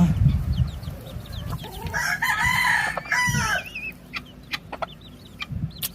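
A chicken gives one long, loud call lasting nearly two seconds, starting about two seconds in. Small high peeps sound before and after it, and a few light clicks follow near the end.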